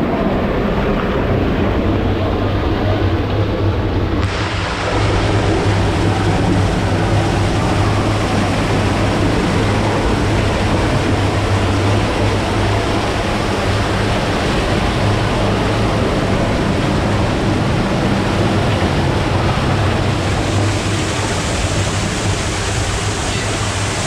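Waterfall pouring and splashing at close range in a narrow channel: a loud, steady rush with a strong low rumble, growing hissier about four seconds in.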